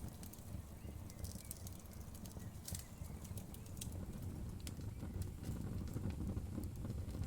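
Wood fire burning, with a low steady rumble of the flames and irregular sharp crackles and pops from the burning wood, thickest around two to three seconds in.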